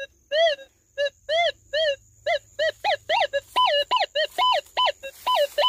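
Minelab metal detector giving a run of short target beeps as its coil is swept over the bank, mostly at one mid pitch, with several higher, longer tones in the second half. The beeps are signals from metal targets in the ground.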